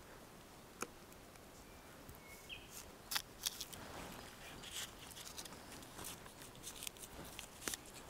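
Birch bark being pried up with a knife and slowly peeled off the trunk: faint scraping with a few small sharp cracks and clicks.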